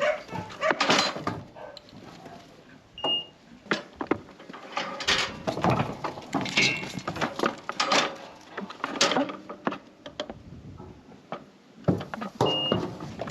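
Irregular metal clanks and knocks from a sheep weigh crate and yard gates as lambs are worked through, with two short high beeps about three seconds in and near the end.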